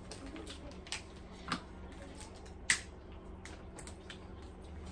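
Crab legs being broken and picked apart by hand: scattered small cracks and clicks of shell, with one sharper snap a little under three seconds in.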